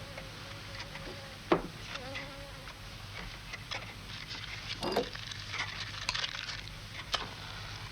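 Flies buzzing over a steady low hum, with a few sharp knocks; the loudest knock comes about a second and a half in.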